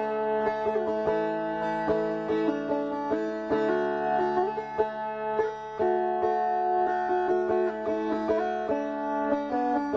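Music on a plucked string instrument: a melody of plucked notes over a steady, unchanging drone note.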